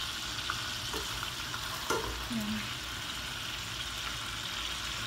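Chicken pieces sizzling steadily in hot oil in a frying pan as they brown. A few light clicks come from metal tongs touching the pan and the meat.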